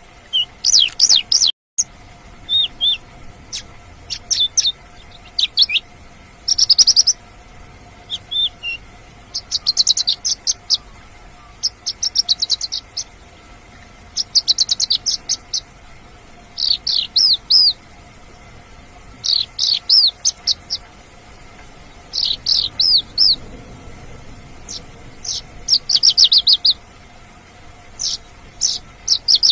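Mongolian lark singing: short bursts of rapid, high chirps and trills, each about a second long, repeated every two to three seconds.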